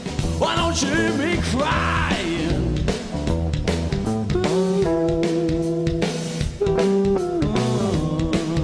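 Blues-rock band playing an instrumental passage on guitar, bass and drum kit. In the first couple of seconds a lead line bends up and down.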